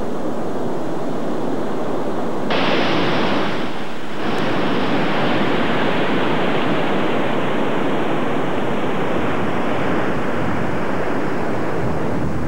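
Ocean surf breaking over rocks: a continuous rushing wash of waves, which grows brighter and slightly louder abruptly about two and a half seconds in.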